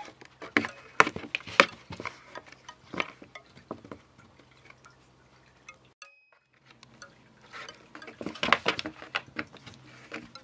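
Cats batting and grabbing wand toys through the holes of a cardboard box: a string of sharp taps and knocks on the cardboard, busiest at the start and again about eight seconds in, with a brief break about six seconds in.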